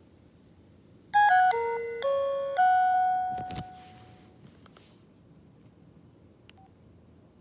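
Nokia 1315 mobile phone playing its power-on melody through its small speaker: a short electronic tune of about five notes starting about a second in, the last note held and fading away as the boot logo shows. A brief knock follows, and near the end a faint click and short beep as a key is pressed.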